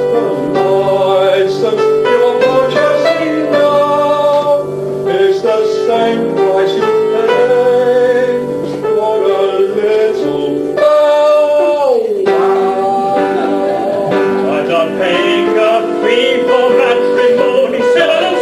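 Amateur chorus of men and women singing in a comic stage opera, holding long notes, with one note sliding down about twelve seconds in.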